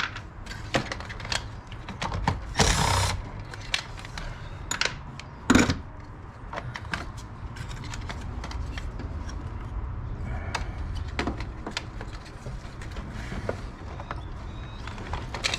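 Hand tools clicking and clinking on the fasteners of a car's small auxiliary battery as it is unbolted, with a brief scraping burst about three seconds in and a sharp knock about five and a half seconds in.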